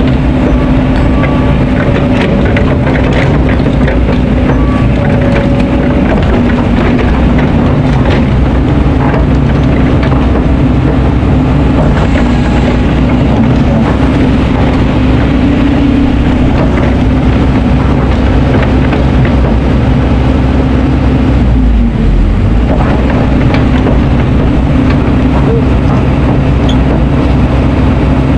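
Kobelco hydraulic excavator's diesel engine running steadily under working load, with scattered knocks and clatter of stones as the bucket handles sand and rock.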